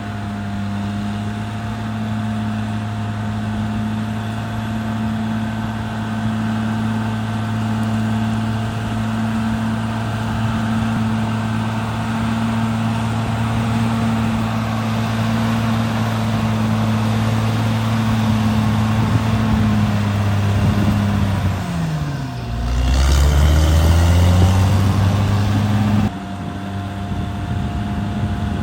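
CAT D6R XL bulldozer's diesel engine running steadily. About three-quarters of the way in, its note sags sharply, then climbs back and runs louder for a few seconds before it cuts off suddenly and the steady running resumes.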